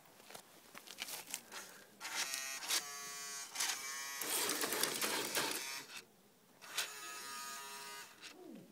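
Radio-controlled drift car's small electric motor whining in short bursts, about two seconds in and again near seven seconds, with a rushing hiss between them. A few light clicks come before the first burst.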